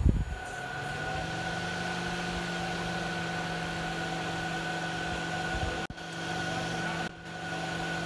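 Pedestrian warning speaker (acoustic vehicle alerting system) of a 2020 Toyota RAV4 Hybrid sounding its drive-mode warning tone, the noise it gives when moving forward at up to 30 km/h. It is a steady electronic hum of a few stacked tones that starts within the first second and cuts out briefly twice in the second half.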